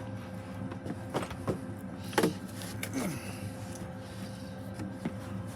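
Stihl GTA26 battery-powered mini chainsaw running, a steady electric-motor hum broken by several sharp knocks and a few short whirs that fall in pitch.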